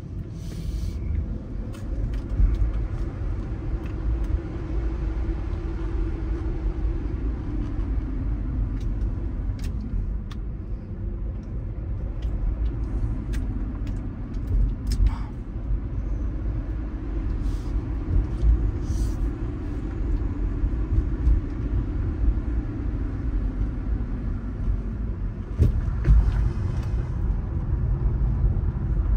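Car driving along a road, heard from inside the cabin: a steady low rumble of tyres and engine, with a few faint clicks.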